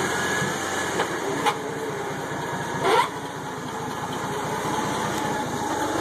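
Forklift engine running steadily while the forks are driven up to a truck bed, with a few short rising squeaks, the loudest about three seconds in.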